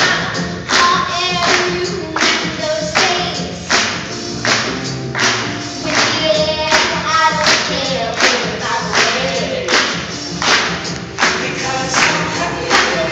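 Upbeat gospel-style song, with singing voices over a band and a steady strong beat of a little more than one hit a second.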